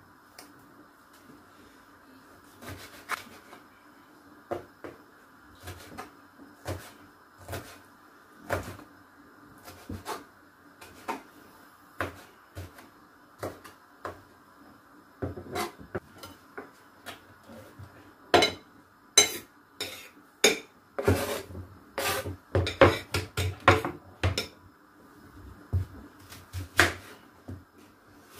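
Kitchen knife chopping red bell pepper on a bamboo cutting board: sharp knocks of the blade on the wood, about one a second at first, then a quicker, louder run of strikes past the middle.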